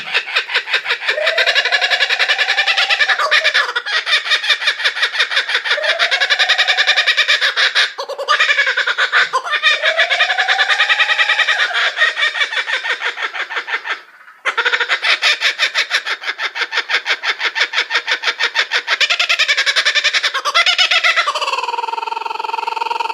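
A bird's loud, rapidly pulsing call in long runs, its pitch arching up and down. It breaks off briefly twice.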